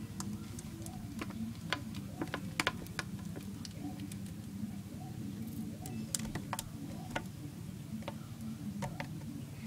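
Irregular light clicks and taps from a kingsnake's coils and the mouse it is constricting shifting against the walls of a plastic tub, over a low steady hum.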